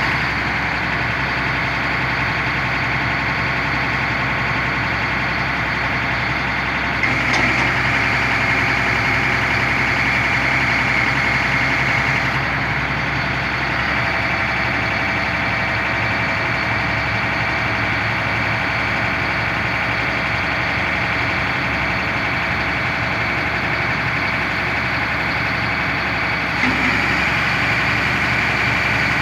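1999 Sterling boom truck's engine running steadily to drive the hydraulics of its National crane as the boom telescopes out, with a steady high whine over the engine. The sound steps up briefly about seven seconds in and again near the end, as the controls are worked.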